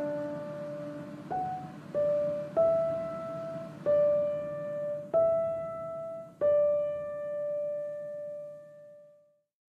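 Background piano music: six slow single notes struck one after another, the last left to ring and fade out.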